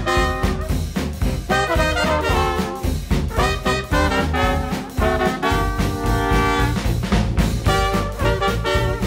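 Background music: swing-style jazz with brass horns playing over a steady beat.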